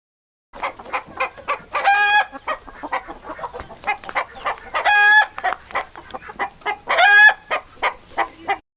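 Chicken clucking in quick runs of short calls, broken three times by a longer, drawn-out squawk about every two to three seconds.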